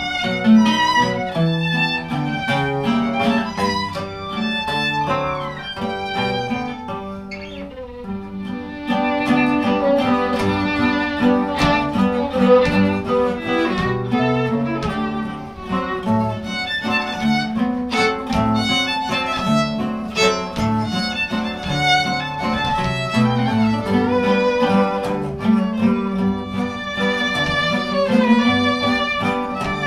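Acoustic string trio playing a waltz: a bowed violin carries the melody over a guitar and a twelve-string bajo sexto strumming the accompaniment. The playing eases off about seven seconds in, then comes back fuller.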